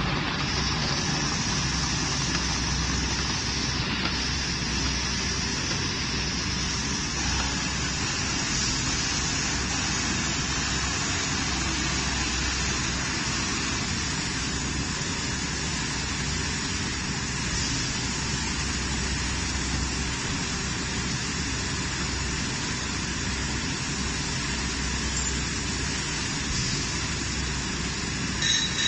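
Rotary liquid bottle filling machine running steadily: a continuous mechanical hum mixed with the hiss of running water, with two brief louder clicks near the end.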